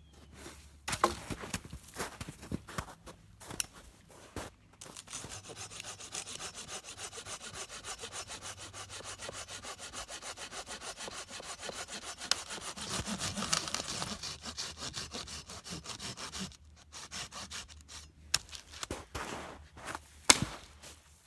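Small hand saw cutting through a dry dead branch in quick, even back-and-forth strokes for about twelve seconds. Before the sawing there are scattered knocks of the branch being handled. After it come more knocks, and a single loud knock near the end as a boot kicks the branch.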